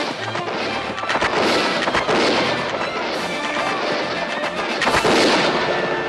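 Film battle soundtrack: scattered gunshots and clashing impacts of a shipboard boarding fight over background music.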